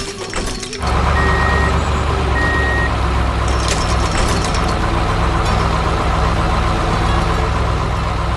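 Heavy construction vehicle's engine running with a steady low rumble that swells about a second in, with two short reversing beeps soon after and a few short knocks around four seconds in.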